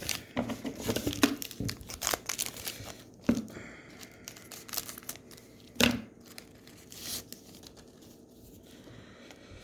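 Trading-card pack wrapper being torn open and crinkled, with quick crackles through the first few seconds and one louder snap about six seconds in, then quieter rustling of the wrapper and cards being handled.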